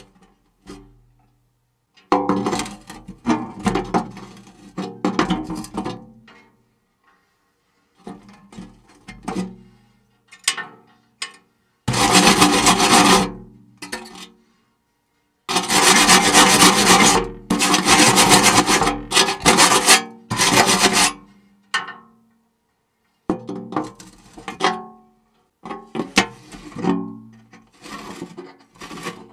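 Electric hay cutter running in short starts and stops with a loud grinding, rubbing noise: the abnormal noise of a fault inside the machine. The longest run is about five seconds, around the middle.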